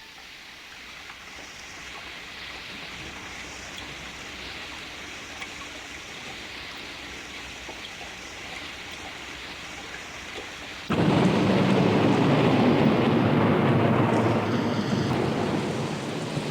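Thunderstorm sound effect: steady rain, then about eleven seconds in a sudden loud crack of thunder that rumbles for a few seconds and dies down.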